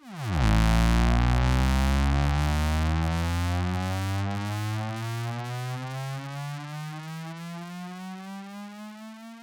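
Synthesized mobile-suit start-up sound effect: a buzzy tone that starts suddenly, swoops sharply down in pitch, then glides slowly upward while gradually fading.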